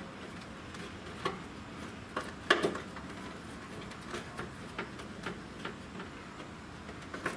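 Scattered light clicks and taps of hard plastic as a license plate light housing is handled and slid into place, the loudest a sharp click about two and a half seconds in.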